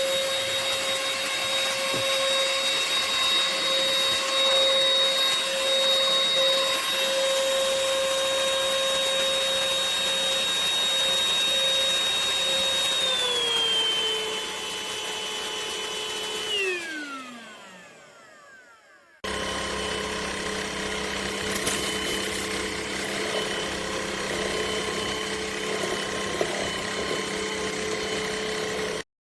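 UML0 N8 cordless stick vacuum's motor running with a steady high whine. Partway through it steps down to a lower speed, then is switched off and winds down with a falling whine. After a short silence it is heard running steadily again.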